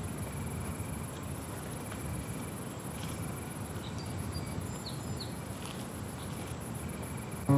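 Summer-evening field ambience: crickets and other insects trilling steadily over a low outdoor rumble, with a few brief bird chirps about four to five seconds in. Acoustic guitar comes in right at the end.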